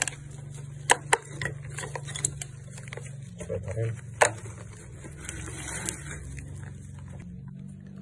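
Sharp knocks and scrapes of hand tools on concrete and a metal drain grate as rubble is chipped and cleared, the loudest knocks about a second in and about four seconds in, over a steady low hum.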